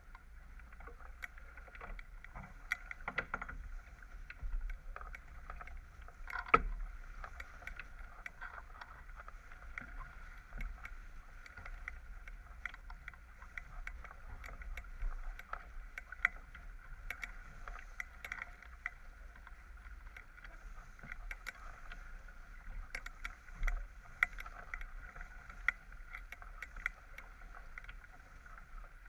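Water rushing and splashing along the hull of a J/24 sailboat under way, with frequent small clicks and knocks throughout and a sharper knock about six and a half seconds in.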